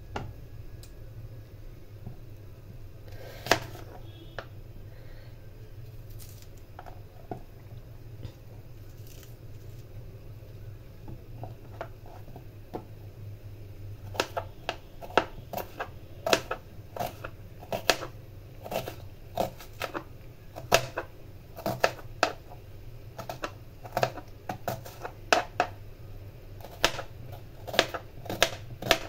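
Kitchen knife slicing a red onion on a plastic cutting board: sharp knocks of the blade on the board, about two a second, starting about halfway through. Before that, only a few single knocks over a steady low hum.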